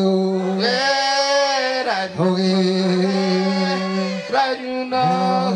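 A single voice chanting in long held notes, breaking briefly between phrases about every two seconds, in traditional Ogiek song.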